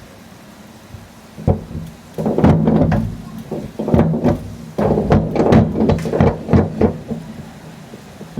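A run of sharp knocks and thuds from a diving springboard being worked, starting about a second and a half in and bunched in clusters for several seconds, over a steady low hum.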